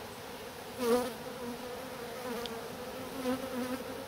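Honeybees buzzing, a steady wavering hum from many bees crowding a hive entrance narrowed to its smallest opening. One buzz swells louder for a moment about a second in.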